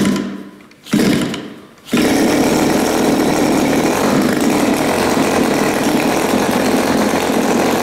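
Turnigy TP31-T 31cc twin-cylinder two-stroke gas model-aircraft engine being hand-started cold with the choke off. It fires in two short bursts, then catches about two seconds in and runs steadily, spinning its propeller.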